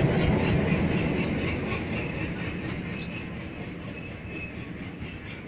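Passenger coaches of an Indian Railways train rolling past on the adjacent track, their wheels clacking over the rail joints, fading steadily as the train draws away. The low rumble of the leading WDG-3A diesel locomotive dies away in the first second or so. A faint wheel squeal comes about three seconds in.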